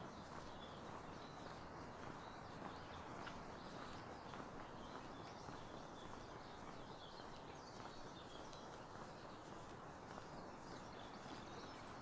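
Quiet outdoor ambience: a steady low hiss with scattered faint bird chirps.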